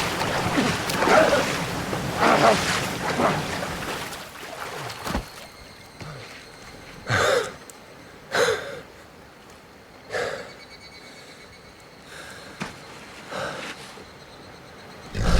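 A person gasping for breath: short, sharp gasps a second or two apart over a quiet background, after a few seconds of louder rustling noise that fades away.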